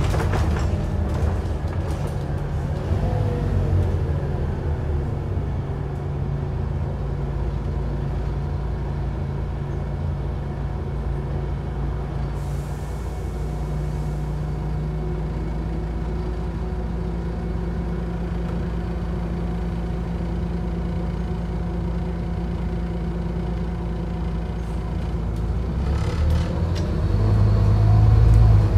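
Scania CN230UD OmniCity double-decker bus heard from inside the lower deck: its engine and driveline whine fall away in the first few seconds, then the engine runs steadily at low revs for a long stretch. A short hiss of air comes partway through, and near the end the engine revs up, louder, as the bus pulls away.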